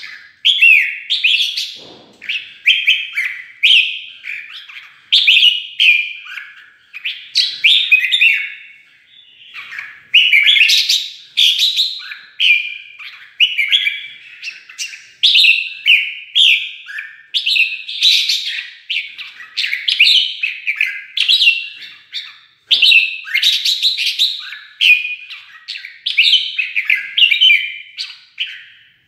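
Red-whiskered bulbul singing its fighting song: quick, loud whistled phrases one after another with barely a pause.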